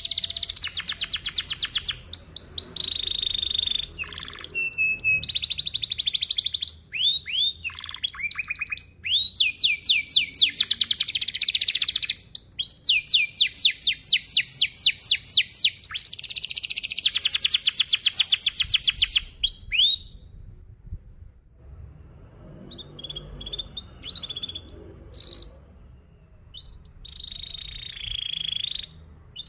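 Domestic canary singing a long song of tight, fast rolling trills, high-pitched runs of quickly repeated notes with swooping notes between them. After about twenty seconds the song thins out to scattered short chirps.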